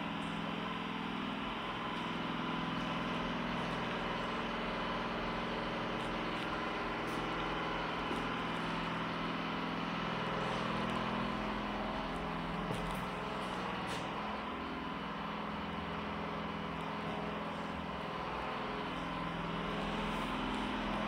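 A steady machine hum, like an engine or motor running continuously, its low drone slowly swelling and easing.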